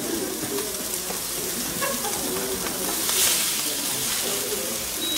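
Meat searing in a hot frying pan: a steady sizzle that swells louder about three seconds in, as the meat is moved with tongs.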